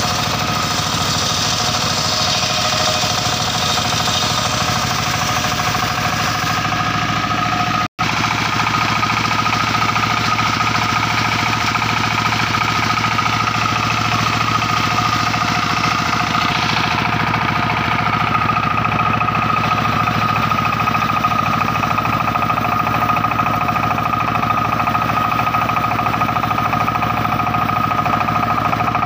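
Sawmill circular saw machine running steadily with a high, even whine from the blade. The sound drops out for an instant about eight seconds in, then carries on.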